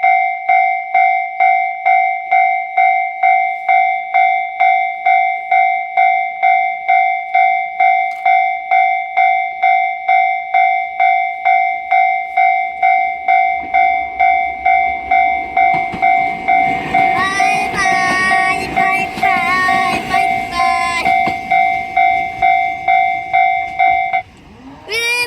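Japanese railway crossing bell ringing 'kan-kan' at a steady pace of about two strikes a second. About halfway through, a train's rumble builds as it passes over the crossing, with high wavering tones over it. The bell stops near the end.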